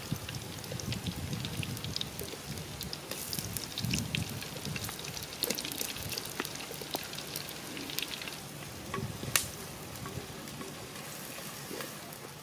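Water boiling in a pot over a crackling wood fire, sizzling and popping with many small clicks, while sliced onions are scraped in from a plastic plate with a wooden spoon and stirred. One sharp click stands out about nine seconds in.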